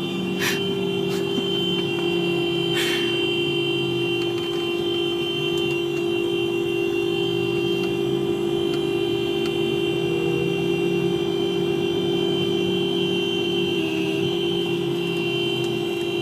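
1997 Honda Accord's horn stuck on, sounding continuously as two steady tones close together in pitch; a fault keeps it from shutting off. Two short noisy bursts come in the first three seconds, and the tone wavers briefly near the end.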